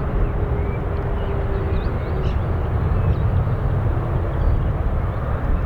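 Boeing 777-300ER jet airliner with two GE90 turbofan engines on final approach to land: a steady, deep jet rumble.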